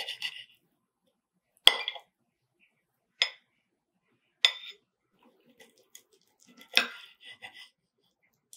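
Metal fork and knife clinking against a ceramic plate while cutting roasted cauliflower: about five sharp, separate clinks spaced a second or two apart, with softer small ticks and scrapes in between.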